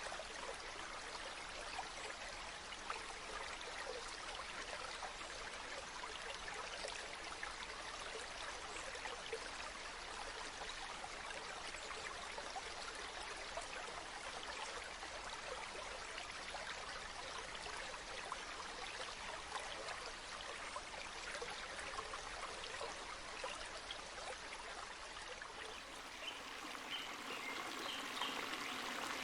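Running water of a small spring-fed stream, a steady rush of flow. Near the end the sound shifts, with brighter splashes and trickles coming through.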